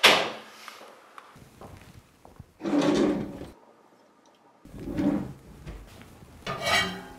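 A sharp knock at the start, then three separate sliding, clattering sounds of about a second each: a kitchen drawer being slid open and shut, and things in it being handled.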